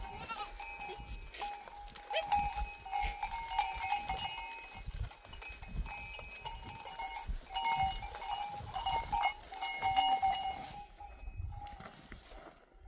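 Metal livestock bells on a herd of goats clanking and ringing irregularly as the animals move, the jangling fading out near the end.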